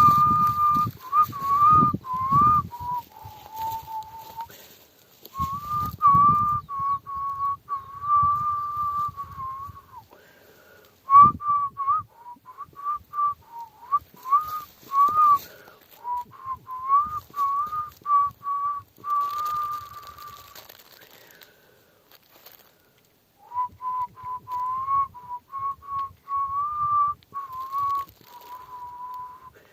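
A person whistling a slow tune: one clear line of held notes and small slides, stopping now and then. There are scattered low knocks and handling noises, with one sharp knock about eleven seconds in.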